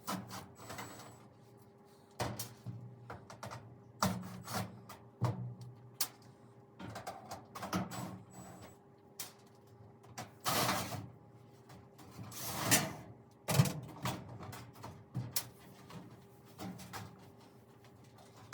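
Handling noises as the back plate comes off a Whirlpool electric dryer: scattered clicks and knocks of a screwdriver and loose sheet-metal panel, with two longer scraping sounds near the middle.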